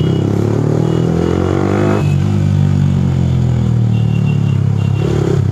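Motorcycle engine heard on board. It revs up with rising pitch for about two seconds, drops back, then runs steadily at low speed in traffic.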